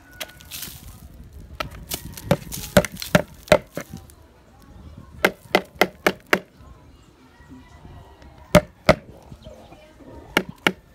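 Sharp knocks on an upturned plastic pigeon nest bowl as the old, dirty nesting sand is tipped out of it: quick runs of four or five knocks, then two pairs near the end.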